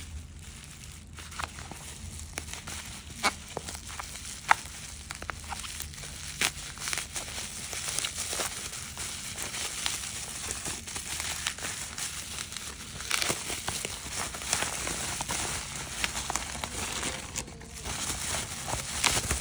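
Plastic bubble wrap crinkling and crackling as it is pulled off a boxed phone case by hand. A few sharp crackles stand out in the first few seconds, then the crinkling grows denser and more continuous.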